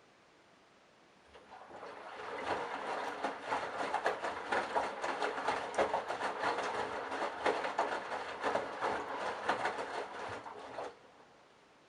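Candy BIANCA front-loading washing machine's drum turning on the delicates wash: the motor starts about a second in, builds up, and runs for about nine seconds with a dense patter of knocks and clicks from the tumbling load, then stops abruptly near the end. This is the short turn-and-rest drum action of a delicates cycle.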